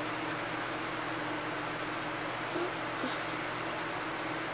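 Red colouring scribbled back and forth on paper: a fast, scratchy rubbing of several strokes a second.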